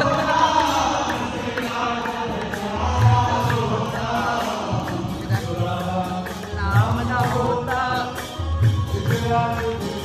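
Group singing of a Hindu devotional bhajan: several voices chanting together over a regular low beat and quick percussive clicks.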